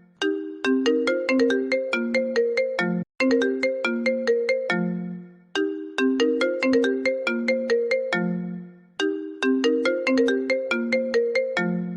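iPhone ringtone playing: a short melody of bright notes, each starting sharply and fading, repeated as a phrase about every three seconds, each phrase ending on a lower held note before a brief gap.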